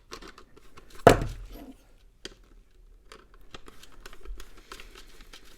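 Handling clicks and knocks from a plastic Solari Cifra 3 flip clock being taken apart. One loud knock about a second in, then a run of small clicks and scrapes.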